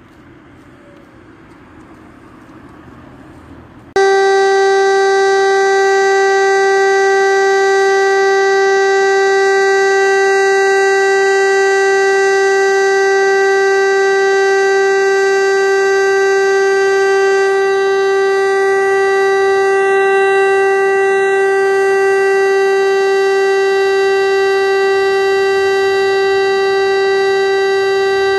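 Outdoor civil-defence warning siren sounding the steady continuous test tone of the Czech monthly siren test. It cuts in suddenly about four seconds in at full strength and holds one unwavering pitch, over faint outdoor background before it starts.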